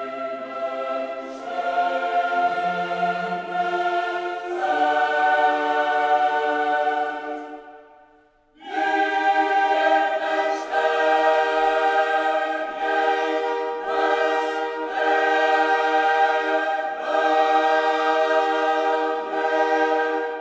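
Background music: a choir singing slow, held chords, fading out about eight seconds in and starting again a moment later.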